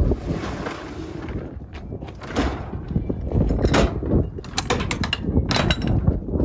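A box truck's roll-up rear door pulled down, a steady rolling noise for about the first second and a half. It is followed by a series of sharp metal clanks and clicks as the door's latch handle is worked and locked.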